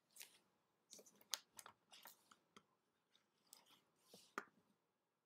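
Near silence broken by faint, irregular short clicks and crackles.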